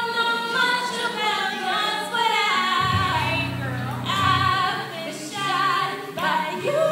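A young woman singing solo into a microphone, gliding between notes and wavering on the held ones. Underneath is a musical accompaniment that holds steady low notes for stretches, most plainly about three to four and a half seconds in.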